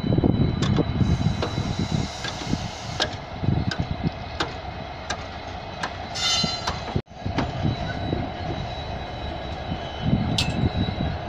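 Indian Railways diesel locomotive running, a steady engine rumble and hum. There is a brief high squeal about six seconds in, and the sound cuts off abruptly for an instant about seven seconds in.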